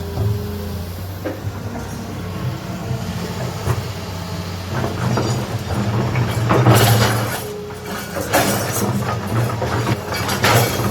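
Heavy diesel machinery running with a steady low drone, with bursts of rattling and clattering about halfway through and again near the end.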